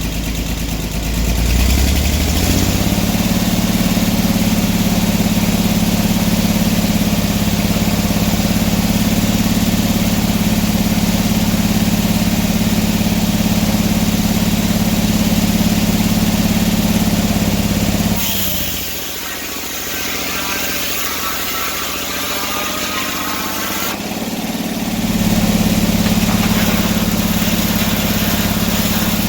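Engine of an antique sawmill revving up in the first couple of seconds, then running steadily at speed. About two-thirds of the way through, its deep note drops away for several seconds, leaving a softer, noisier sound, then comes back.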